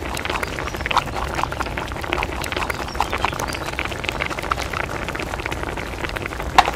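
Spicy seafood ramyeon broth boiling in a shallow pan, its bubbles popping irregularly several times a second, with one louder pop near the end.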